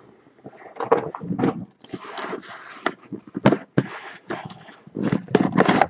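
Cardboard box being opened by hand: its flaps pulled apart and rubbing, with irregular rustles, scrapes and small knocks.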